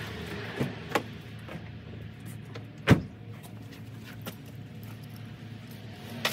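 A few sharp knocks, the loudest about three seconds in, over a steady low hum.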